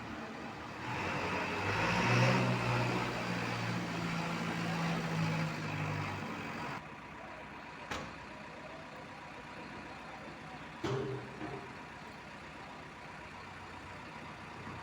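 Heavy diesel machinery engine revving up about a second in and running hard for several seconds, then easing off near seven seconds. A sharp click comes near eight seconds and a short knock near eleven.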